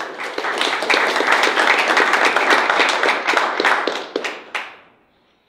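Audience applauding, a dense patter of many hands that holds for about four seconds, then thins out to a last clap or two and stops.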